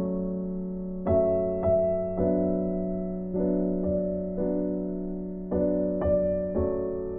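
Background music: a slow, gentle piano melody of held notes over a steady low tone.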